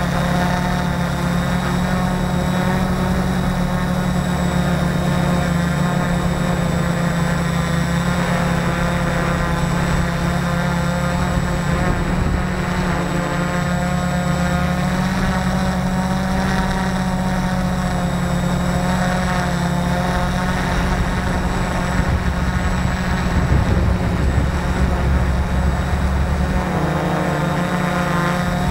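Hobby multicopter's electric motors and propellers whirring steadily in flight, recorded close up from on board. Their pitch wavers slightly as the throttle changes.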